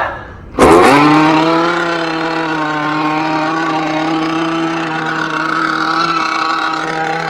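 Two-stroke engine of a gas-powered RC boat running at a steady high pitch. It starts abruptly a little under a second in, loudest at first and dropping slightly in pitch before holding steady.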